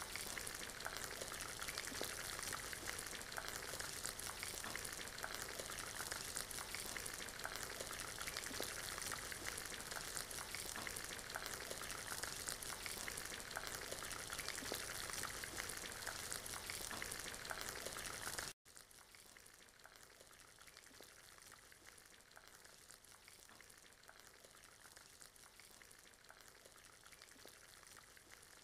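Mixed vegetables (potato, carrot, green beans and broccoli) sizzling in hot oil in a frying pan as they are stir-fried with a wooden spatula: a steady crackling sizzle. About two-thirds of the way through it cuts suddenly to a much quieter sizzle.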